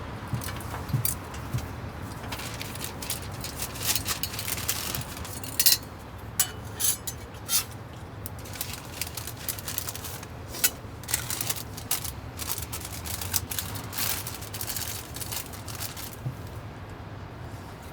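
Kitchen clatter: irregular clicks and clinks of food being prepared and handled, over a steady low hum.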